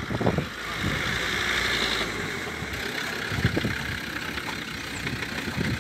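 Land Rover Discovery II's engine running at low revs, heard from outside the vehicle. A rushing hiss sits over it from about half a second to nearly three seconds in.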